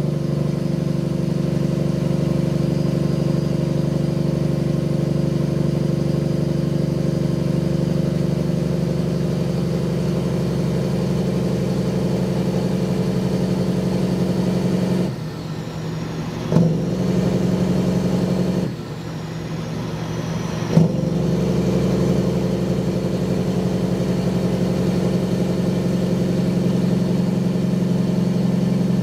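Caterpillar diesel engine of a Peterbilt 379 semi truck pulling steadily. Twice in the middle it drops off for about two seconds, and each gap ends with a short clunk as a gear goes in and the engine picks back up.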